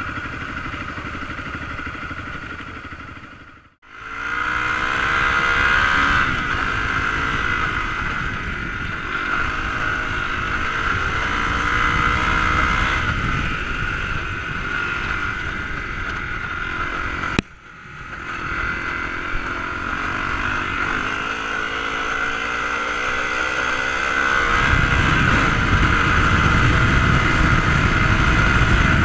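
Dirt bike engine running under the rider, its pitch rising and falling with the throttle. The sound drops out briefly about four seconds in and breaks off sharply once more partway through, and a low rumble grows stronger near the end.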